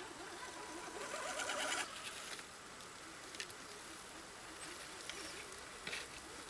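A small electric RC crawler truck's motor and drivetrain whining faintly and wavering with the throttle as it crawls through forest undergrowth, with a louder rustle of brush about a second in and a couple of short clicks later.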